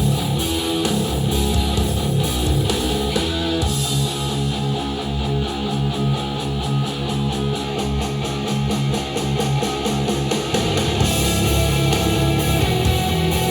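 Rock music with strummed electric guitar, played through Edifier powered bookshelf speakers and picked up by microphones in the room.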